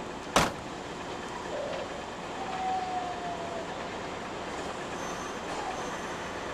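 A door on an electric train slams shut once, loudly, just after the start, as the conductor boards through the crew door. Around the middle a short thin squeal falls slightly in pitch, over the steady noise of the train at the platform.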